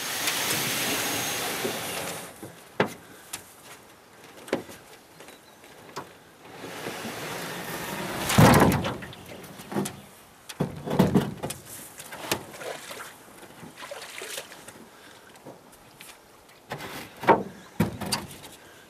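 Canoe hull scraping and knocking as it is pushed off the bank into the water: a long loud scrape at the start, then scattered knocks and shorter scrapes, the biggest about eight and eleven seconds in.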